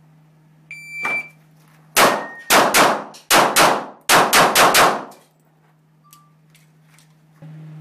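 Shot timer's start beep, then a rapid string of about nine pistol shots fired within three seconds, each echoing on an indoor range.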